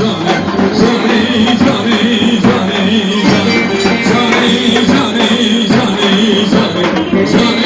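Middle Eastern folk music with steady drumming under a wavering melody line.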